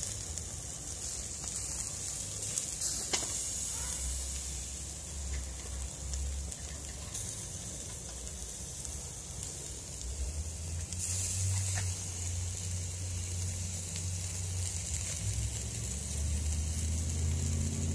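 Yellow croaker sizzling in a wire grilling basket over hot charcoal, a steady crackling hiss. A low rumble runs underneath and grows stronger in the second half, with one sharp click about three seconds in.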